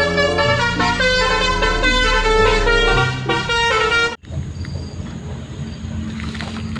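Telolet bus horn playing its tune, a multi-tone horn stepping quickly from note to note. It cuts off suddenly about four seconds in, leaving a quieter steady hum.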